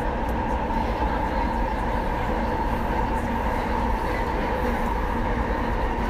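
Rinkai Line commuter train running between stations, heard from inside the carriage: a steady rumble of wheels on rails under an even, pitched hum.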